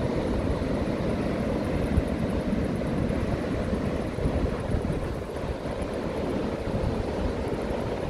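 Wind buffeting the microphone in an uneven low rumble, over the steady wash of surf breaking on a sandy beach.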